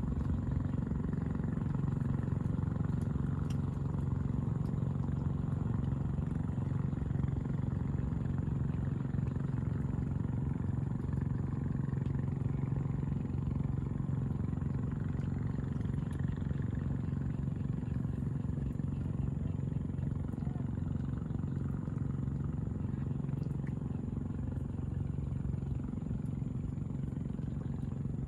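A steady, low engine drone that holds an even pitch throughout.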